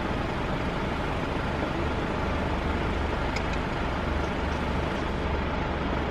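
Steady low engine hum of a campervan idling in a stopped queue, heard from inside the cab, under an even hiss.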